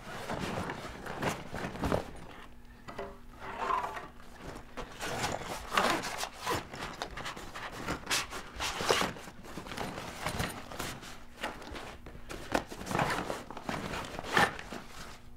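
Rustling and scraping of a heavy fabric carry bag being packed, as kayak paddle sections and a padded seat are pushed inside, with irregular knocks and shuffles.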